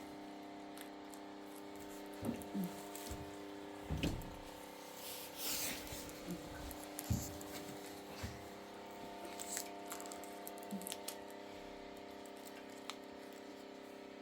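Steady low hum with scattered soft knocks and rustles of things being handled, busiest in the middle.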